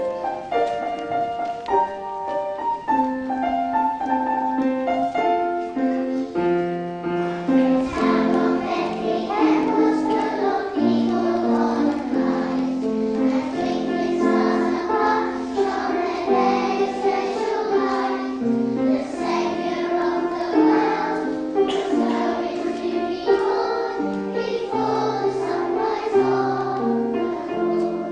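Young children singing a song together in a group, with piano accompaniment. The piano plays on its own for the first several seconds before the voices come in.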